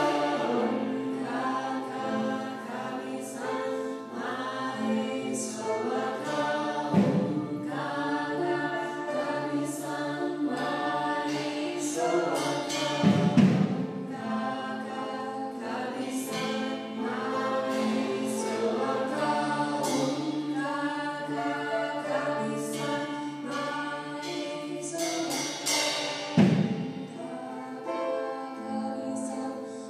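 Choral music: several voices singing sustained notes together, with three deep percussion hits, about seven seconds, thirteen seconds and twenty-six seconds in.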